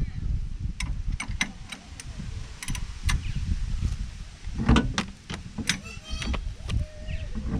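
Irregular metallic clinks and knocks of tools on suspension bolts and parts, with a louder cluster of ringing clanks about five seconds in, over a steady low rumble.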